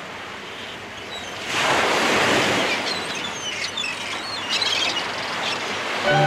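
Recorded sea surf swelling in, with short high bird calls over it, as the sound-effect opening of a carol. Instrumental music comes in just before the end.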